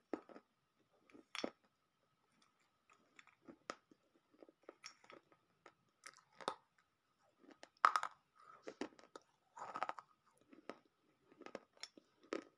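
Crunchy bites and chewing of dry baked clay pieces, close to the microphone, with the loudest crunches about eight and ten seconds in. A faint steady tone runs underneath.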